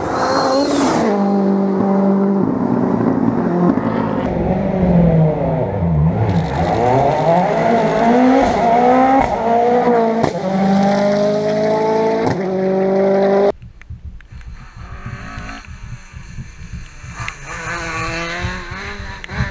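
Rally cars at speed on a stage, engines revving hard with the engine note repeatedly climbing and dropping. About thirteen seconds in the sound cuts sharply to a quieter, more distant rally car, a Ford Escort Mk2, revving as it works round a hairpin.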